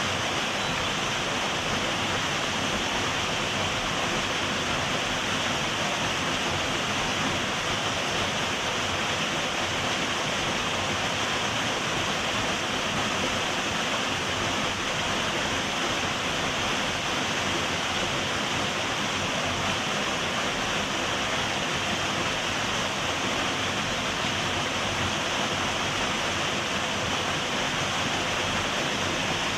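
Waterfall: water falling and rushing in a steady, even roar of white noise.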